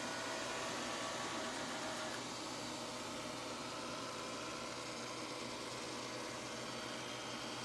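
Xiaomi robot vacuum (first generation) running as it heads back to its charging dock: a steady hiss with a faint motor whine, a little quieter from about two seconds in.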